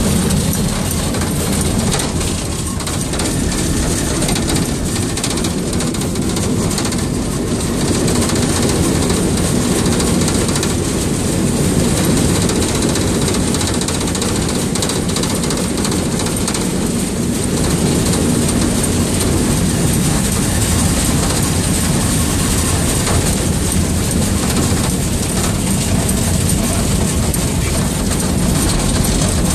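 A 1925 steam shunting locomotive running along the track, heard from inside its cab: a steady, even rumble of wheels and machinery.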